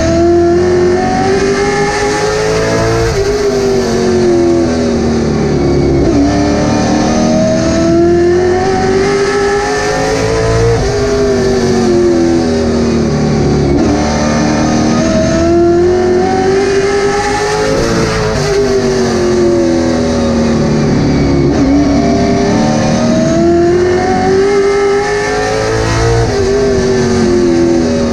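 Late Model stock car's V8 engine at racing speed, heard from inside the cockpit. The pitch climbs on each straight and drops as the driver lifts for the turns, four times over.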